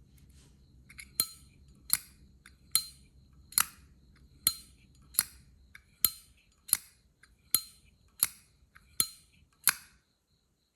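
Lid of a 1982 Zippo lighter being flipped open and snapped shut over and over: about a dozen sharp metallic clacks, each with a faint click just before it, coming evenly a little under a second apart. The clacks come from the snug, tight-fitting hinge of an older Zippo.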